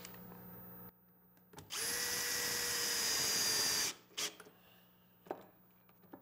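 Cordless drill/driver driving a screw into a wooden hold-down block, its motor running steadily for about two seconds. A few light knocks follow as the drill is moved to the next block.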